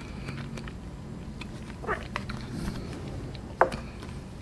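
Faint closed-mouth chewing of soft agar-agar jelly: a few small wet mouth clicks over a low steady hum, the sharpest one near the end.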